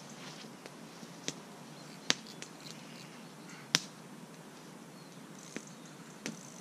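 About six sharp, separate clicks over a faint steady hiss, the loudest two a little past two seconds and near four seconds in.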